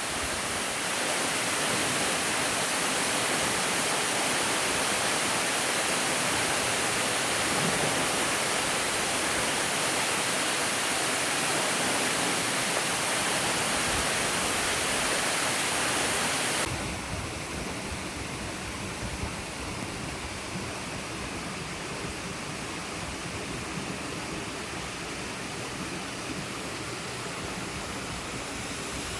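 Steady rush of a waterfall's falling water. About 17 seconds in it abruptly drops in level and loses some of its hiss, then continues steadily.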